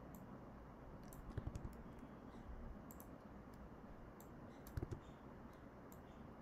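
Faint computer keyboard typing and clicks: scattered key presses, with a quick run of several strokes a little over a second in and a short cluster near the five-second mark.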